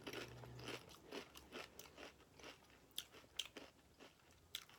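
Faint, close-up chewing of a Subway sandwich: soft, irregular mouth clicks and crunches, roughly two or three a second.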